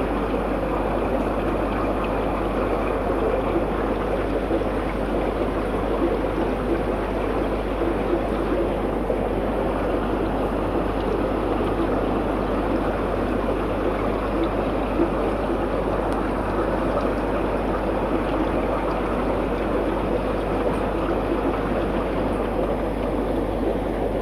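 Aquarium water bubbling and trickling steadily, with a low steady hum underneath.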